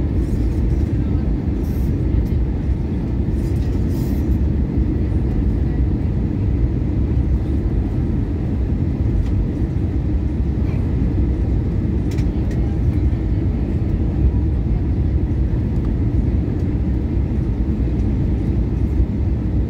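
Steady cabin rumble of an Airbus A320-233 on descent, heard from a seat over the wing: the IAE V2500 engines and the airflow past the fuselage make a deep, even drone that holds level throughout.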